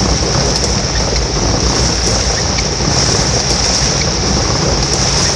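Heavy rain pouring down in a steady, loud hiss, with a low rumble underneath.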